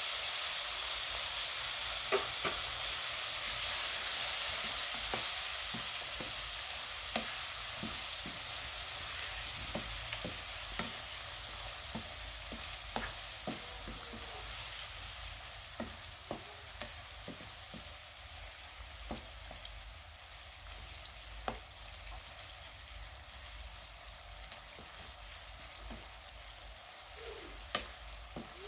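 Vegetables sizzling in a metal frying pan, the hiss slowly dying down, while a wooden spoon stirs them with scattered sharp knocks and scrapes against the pan.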